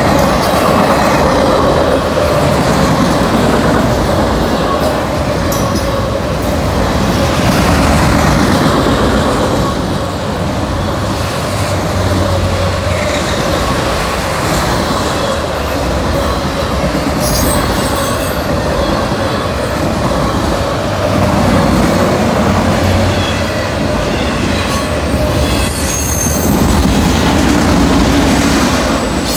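Freight train of autorack cars passing close by at speed: a continuous loud rush of steel wheels on rail, with a steady ringing tone running through it.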